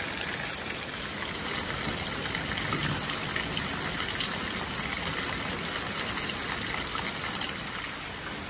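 Rain from a thunderstorm falling steadily, an even rush of water.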